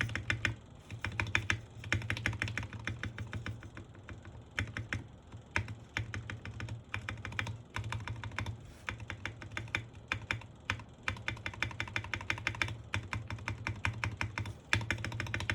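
Typing on a Sky87 mechanical keyboard fitted with Gateron Pro Milky Yellow switches: fast runs of keystrokes broken by short pauses.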